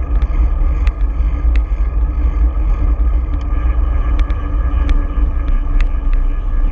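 Steady wind rumble and road noise on a bicycle-mounted camera while riding down a street, with a few scattered sharp clicks from the bike.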